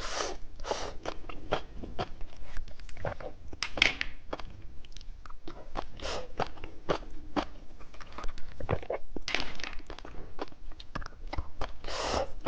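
Close-miked crunching and chewing of candy: a dense, irregular run of crisp crunches.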